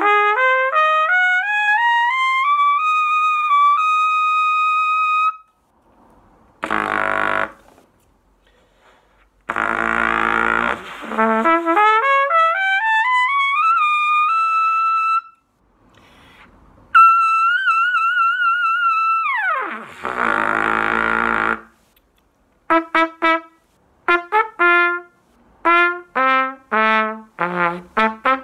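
Trumpet playing lip slurs that step up through the harmonic series into the high register twice, each run ending on a held high note, with breath noise between phrases. Then a high note is shaken and ripped down, followed by short tongued notes jumping up and down in the lower register.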